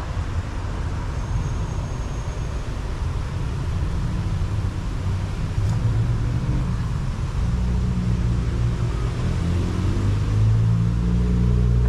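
Low engine rumble that grows louder over the second half, with steady low tones coming in.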